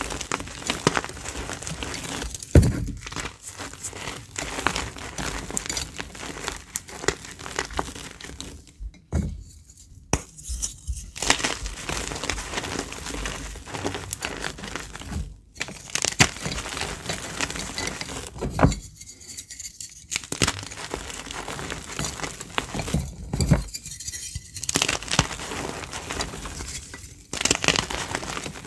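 Reformed gym chalk chunks crunching and crumbling as a hand squeezes them to powder: a dense crackle of breaking pieces, broken by a few short pauses, with one sharper, louder crack about two and a half seconds in.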